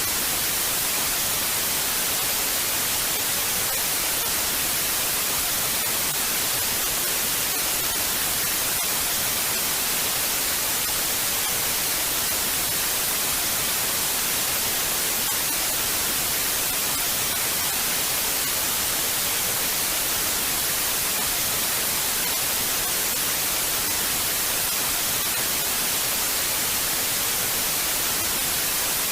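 Television static: a steady, even hiss of noise with no tone or rhythm, brightest in the highs, the sound of an analog TV with no signal.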